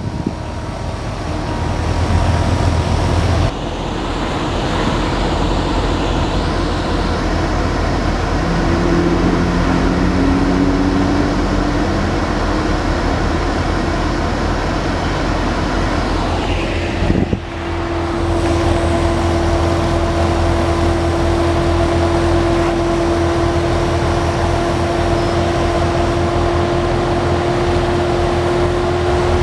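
A vehicle driving on the road: steady engine and road noise, with two brief breaks in the sound about 3.5 and 17 seconds in. After the second break a steady engine tone holds for the rest of the time.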